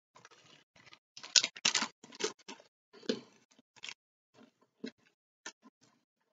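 Crunching of a hard iced biscuit (Ice Gem) being chewed, mixed with crinkling of its plastic packet. There is a run of irregular crackles that is busiest about one to two and a half seconds in, then only scattered single crunches.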